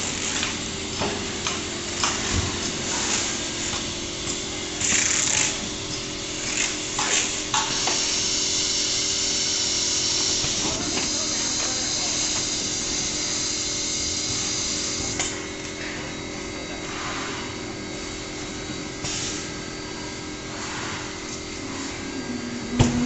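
Assembly-line factory floor noise: a steady machine hum under intermittent whirring of small power tools, scattered clicks and knocks, and a stretch of hissing in the middle.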